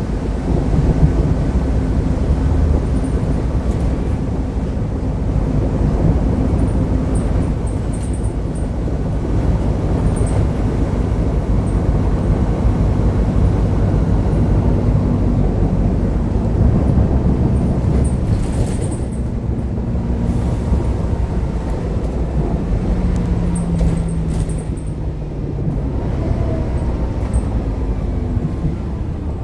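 Mercedes-Benz OC500LE CNG bus running with a worn fan bearing. It makes a steady low rumble, and its engine tones drift up and down in pitch as it moves.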